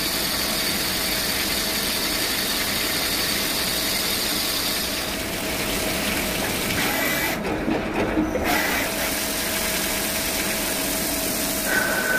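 CNC turning lathe cutting a metal part under flood coolant: a steady machine hum with coolant hiss. The sound shifts briefly about eight seconds in, and a steady high tone comes in near the end.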